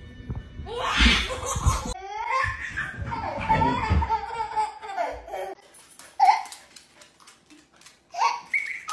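Young children laughing in bursts of giggles and belly laughs, quieter for a couple of seconds near the end with a few light clicks, then a last burst of laughter.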